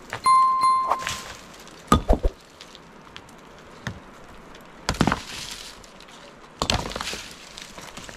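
A short, steady ringing tone near the start, then three bursts of knocks and thuds, about two, five and seven seconds in.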